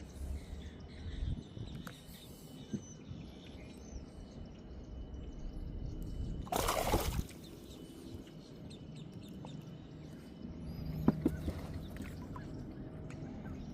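Outdoor lake ambience: water sloshing and trickling, with faint bird calls. A brief loud rush of noise comes about halfway through, and a few sharp knocks follow later.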